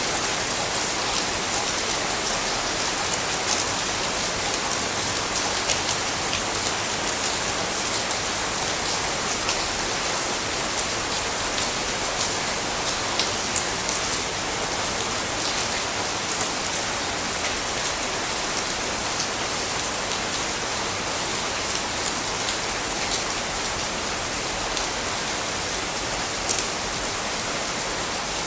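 Heavy tropical rain falling steadily, a dense even hiss with many individual drops pattering on surfaces.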